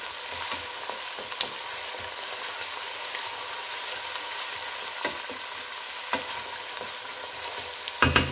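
Chopped onions sizzling in hot oil in a stainless steel pot with a steady hiss, while a wooden spoon stirs them, scraping and knocking against the pot now and then. A louder clatter of the spoon on the pot comes near the end.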